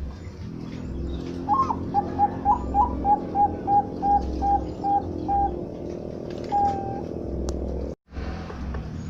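Zebra dove (perkutut bangkok) cooing: a quick series of about a dozen short notes, then a single longer note, over a steady low hum.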